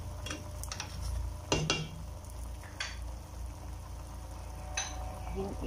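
Chicken and vegetables being stirred in a stainless steel pot, the spatula knocking against the pot several times at uneven intervals, the loudest about one and a half seconds in, over a steady low hum.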